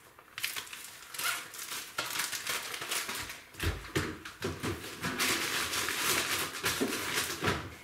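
Plastic bag crinkling and rustling as it is handled, in irregular crackles, with a few soft knocks around the middle and near the end.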